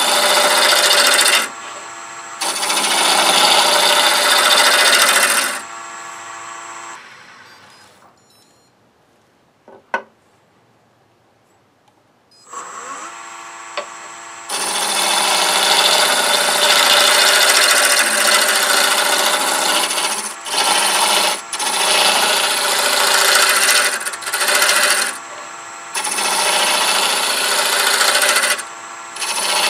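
Wood lathe spinning a small wooden blank while a hand-held turning tool cuts it round: a loud scraping rush of cutting over the motor's steady hum, broken by short pauses where the tool lifts off. About seven seconds in the lathe winds down and stands quiet, with a single click near ten seconds. It then spins back up, its pitch rising, and the cutting starts again.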